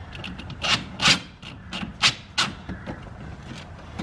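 Short scraping and rubbing sounds of a car battery terminal clamp being worked at on its post, about four brief scrapes with the loudest a little over a second in; the clamp is stuck.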